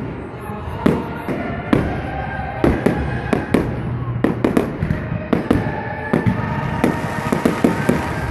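Aerial fireworks launching and bursting: a rapid, irregular run of sharp bangs, several each second.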